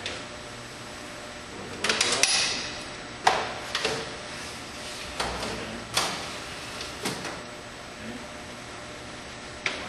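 Sharp knocks and rattles of hardware being handled, most likely shelf parts on a Dorner 5200 conveyor being moved and set. There is a clatter about two seconds in, then single knocks every second or two.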